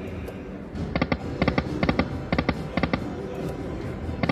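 Slot machine reels stopping one after another, each stop a short electronic chime-click, about two a second after the first second, over the steady murmur of a casino floor.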